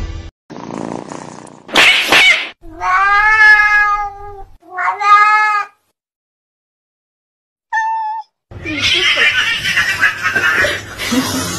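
Cats squaring off: a short burst of noise, then two long drawn-out yowls. After a pause comes a short meow, then a rough, noisy stretch as they tussle.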